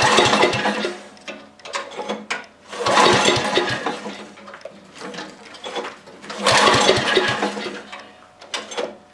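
Briggs & Stratton engine of a 5-horsepower Yard Machines leaf blower being pull-started three times; each pull of the recoil cord cranks it through a quick run of compression strokes, but it does not catch. The engine has just been freed from seizure with penetrating oil, and its failure to start is taken for most likely a carburetor problem.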